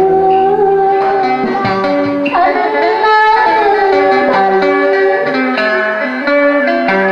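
Woman singing a Vietnamese temple ritual song through a PA, with a plucked-string melody accompanying her.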